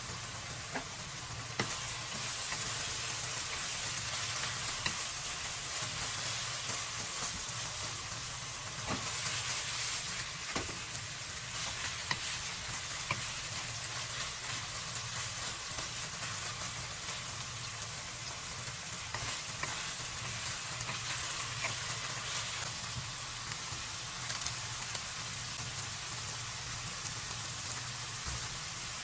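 Food sautéing in hot oil in a pan, with a steady sizzle, while it is stirred. The utensil gives occasional short clicks and scrapes against the pan.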